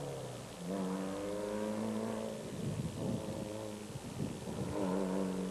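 Engine of a Toyota Hilux off-road race pickup running hard on a dirt track. Its pitch holds steady, dips around the middle, and picks up again near the end.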